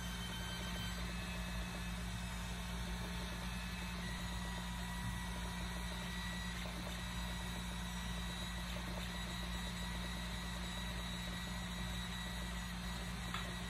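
Voron 2.2 3D printer running a print: a steady hum of its cooling fans, with thin high whines from the stepper motors that shift pitch now and then as the toolhead makes small moves, and one small tick near the end.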